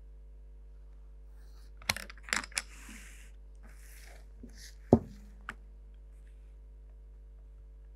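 Drafting instruments handled on a drawing board: a few clicks and taps as a plastic set square and ruler are set down and moved, some brief scraping of plastic over paper, and one sharper knock about five seconds in, over a faint steady hum.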